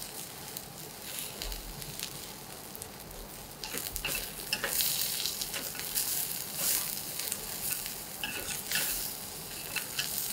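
Eggplant slices sizzling in olive oil in a nonstick frying pan over high heat, with short clicks of metal tongs against the pan as the slices are turned. The sizzle grows louder about four seconds in.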